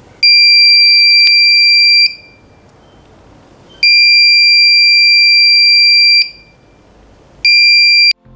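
Buzzer of a DIY reed-switch security alarm sounding a steady, loud, high-pitched tone three times: two long blasts of about two seconds, then a short one near the end. It starts and stops as the reed switch opens and closes the circuit.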